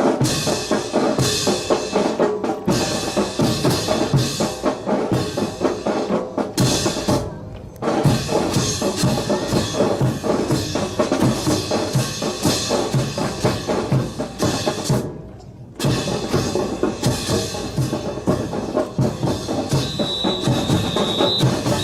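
Drums playing a steady, fast beat, with two short breaks, about eight and fifteen seconds in. A high steady tone sounds briefly near the end.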